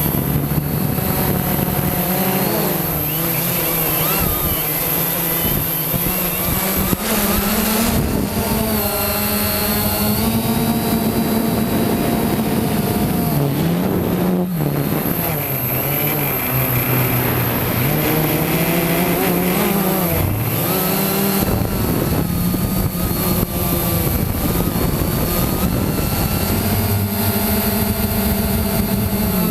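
Quanum Nova quadcopter's brushless motors and propellers buzzing in flight, the pitch rising and falling over and over as the throttle changes, with a steady high whine above it.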